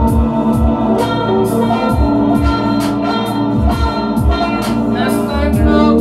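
Live electronic jam: a Roland TR-8S drum machine beat with deep kick drums that drop in pitch and hi-hat ticks, under sustained synthesizer chords.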